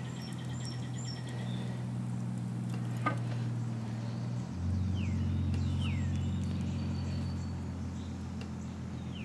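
A steady low machine hum that drops in pitch and grows a little louder about four and a half seconds in, with one sharp click about three seconds in and a few faint bird chirps.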